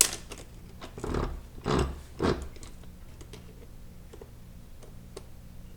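Sharp snap, then three short, rough metal scrapes about half a second apart, as a part is worked loose inside a 4L60E automatic transmission on the teardown bench. Faint small ticks of handled parts follow.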